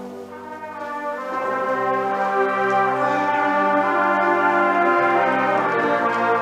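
High school concert band playing slow, sustained chords. The sound swells over about the first two seconds, then holds loud and full.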